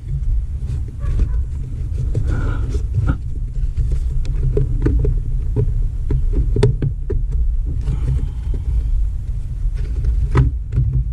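A new air filter being pushed and worked into the plastic air filter housing of a Ford Escape, with scattered small plastic clicks and knocks over a steady low rumble.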